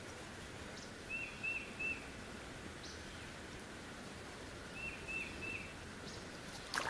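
A bird calling twice, each time three short, quick chirps, about four seconds apart, over a steady outdoor background hiss.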